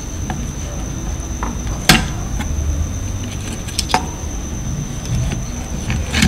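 Small clicks and taps of tools and parts being handled on an electronics workbench, with two sharper clicks about two and four seconds in, over a steady low hum and a faint high whine.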